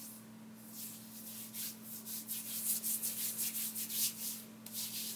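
Hands rubbing together and over skin, spreading a few drops of body serum oil: a quick run of soft swishing strokes, about four or five a second.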